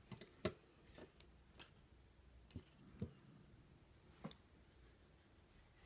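Near silence: room tone with about eight faint short clicks scattered through it, the sharpest about half a second in.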